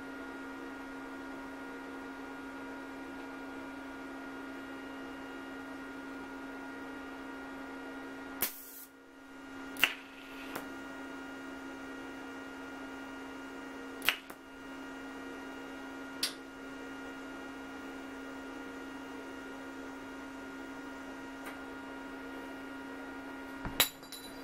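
Steady electrical hum from a TIG welding setup during spot welding on a steel rocker arm, broken by about six sharp clicks or snaps from about eight seconds in, the last two close together near the end.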